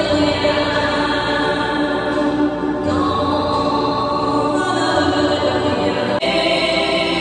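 Slow music with sustained choir-like voices holding long chords; the harmony changes about six seconds in.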